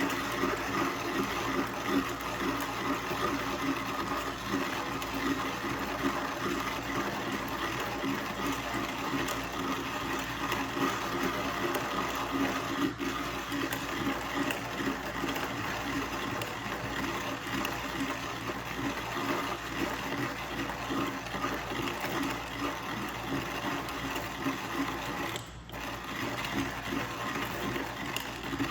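Fiorenzato Pietro manual coffee grinder grinding coffee beans with its burrs set for drip coffee: a steady, continuous grinding, with a brief break about 25 seconds in.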